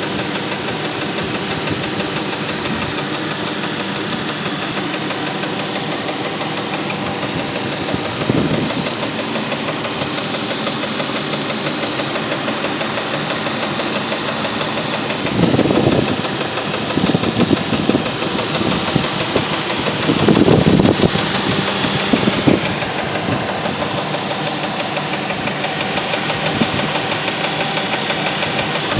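1999 Jeep Grand Cherokee Laredo engine running with a rapid, steady knocking. It grows louder briefly a few times, around 8, 15 and 20 seconds in.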